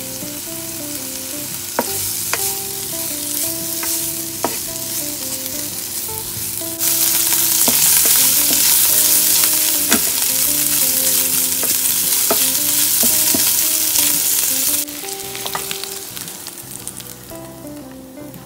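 Diced ham sizzling in a hot nonstick frying pan as a wooden spatula stirs it, with scattered taps of the spatula against the pan. The sizzle grows louder about seven seconds in and eases back about fifteen seconds in.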